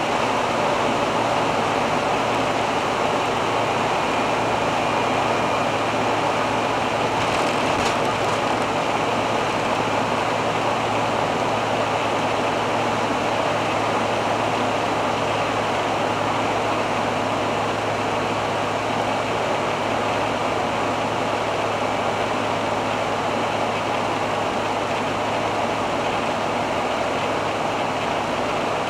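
Steady road, wind and engine noise of a 1985 Hobby 600 motorhome on a Fiat Ducato chassis cruising at about 100 km/h, with a steady low engine drone underneath. A brief higher hiss rises about seven seconds in.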